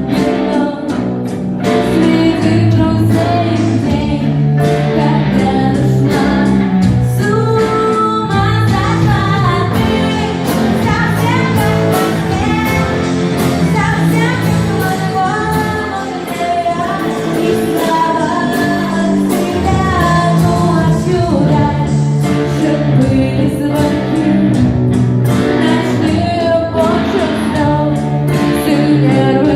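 Live rehearsal of a pop-rock song: a female voice singing over guitar accompaniment.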